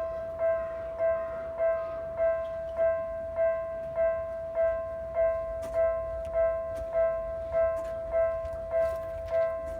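Japanese level-crossing warning alarm ringing its electronic bell tone over and over, about one and a half to two dings a second, evenly spaced and at one pitch: the crossing is active for an approaching train.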